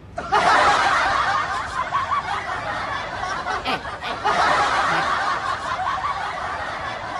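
Laughter that starts suddenly and loudly about a third of a second in, breaks off briefly near four seconds, then carries on.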